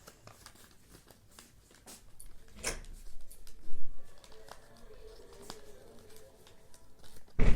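Paper rustling and light clicks as an item is slid into a small handmade paper envelope, with a sharp knock about two and a half seconds in and a heavier thump near the end.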